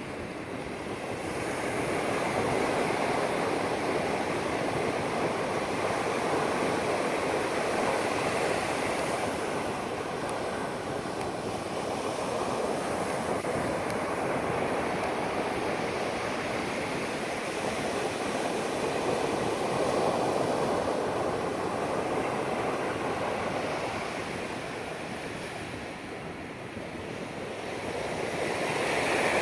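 Pacific Ocean surf breaking and washing up the sand, a continuous rush that swells and eases slowly, dipping briefly near the end before building again.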